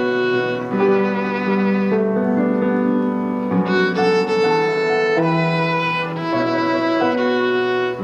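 A violin playing a melody of held notes with vibrato.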